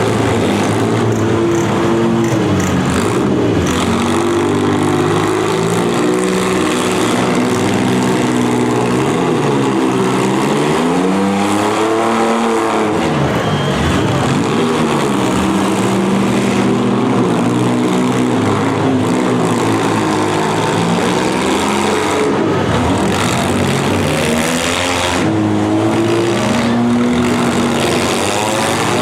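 Several demolition derby cars' engines revving hard and easing off, the pitches rising and falling over one another, with a few sharp knocks of impacts late on.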